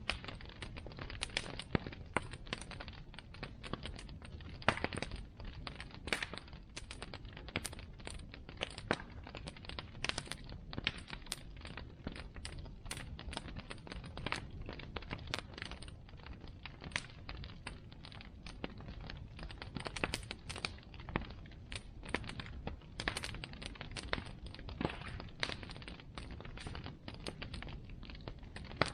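Bonfire burning, its wood crackling with frequent irregular sharp pops over a low steady rumble.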